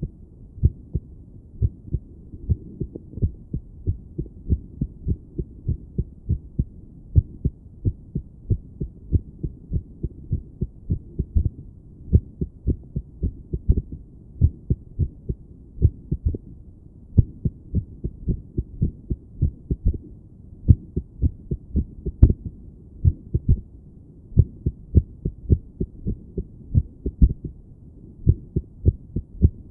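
A woman's heartbeat heard through a stethoscope on the chest: dull paired thumps in an uneven rhythm, an irregular heartbeat that beats erratically and settles only for moments. One sharp click about 22 seconds in.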